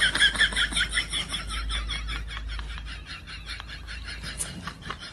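An animal's rapid, even chirping, about eight short high chirps a second, fading toward the end, over a low rumble.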